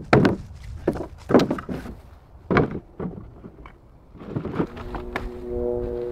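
Boards and gear being moved around and set down: a string of separate wooden knocks and thunks. Background music with held notes comes in about five seconds in.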